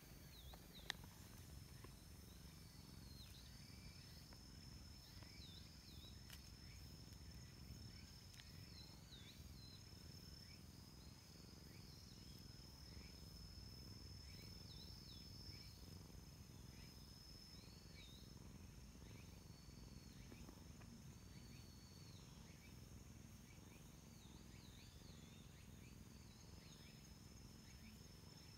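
Faint outdoor insect drone: a steady high buzzing tone with short chirping calls repeating every second or two, over a low rumble.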